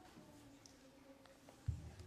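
Quiet stage with a faint steady hum; near the end, a single low thump on the wooden stage floor as the actor drops into a crouch.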